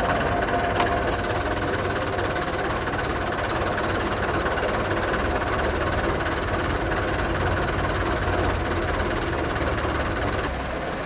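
Tractor diesel engine running steadily, with a couple of faint clicks about a second in; the engine note drops shortly before the end.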